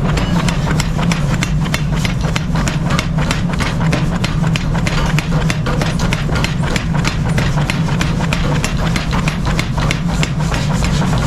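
A machine running with a steady low hum, under a fast run of sharp knocks or clicks, about five a second.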